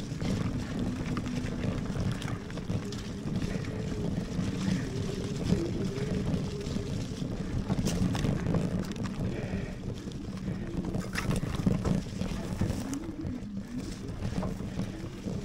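Lectric Xpeak fat-tyre e-bike ridden along a muddy trail: a steady rumble from its 26x4 tyres and wind on the microphone, with scattered sharp knocks from bumps.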